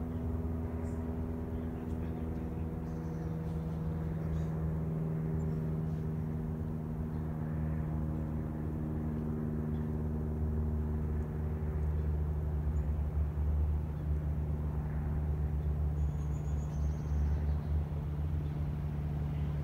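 Cessna 172M Skyhawk's four-cylinder Lycoming engine and two-blade propeller droning steadily overhead, a low even hum that swells a little louder in the second half.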